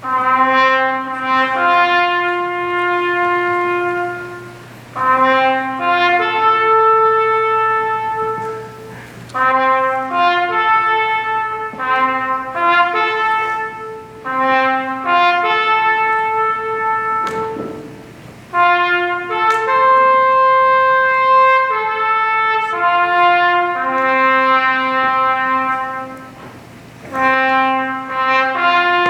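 Solo trumpet playing a slow bugle-style melody: long held notes stepping up and down in separate phrases, each followed by a short pause.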